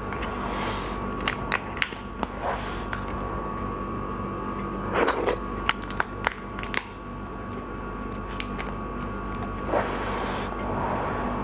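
Shell of a large cooked prawn being cracked and peeled off by hand: irregular sharp clicks and crackles, the loudest cluster about five seconds in, over a steady background hum.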